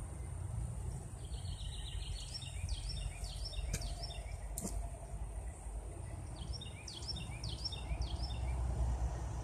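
Outdoor ambience: wind rumbling on the microphone, with a bird singing two bursts of quick repeated chirping notes. Two brief clicks come near the middle.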